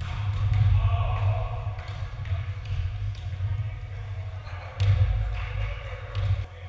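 Volleyball rally in a gymnasium hall: the ball is struck several times by players' hands and forearms, with sharp hits and the loudest one about five seconds in, while players' voices call out across the court.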